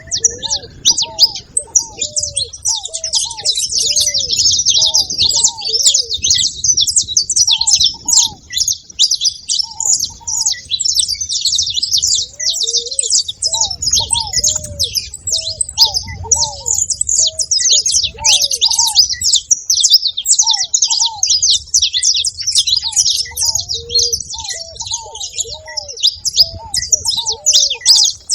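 A flock of saffron finches chattering nonstop in dense, high chirps, with short, low cooing notes of ruddy ground doves repeated again and again beneath them.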